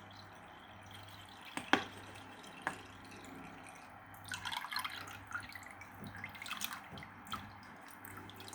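Water dripping and splashing in irregular drops, a few single drips at first and busier from about four seconds in, over a low steady hum.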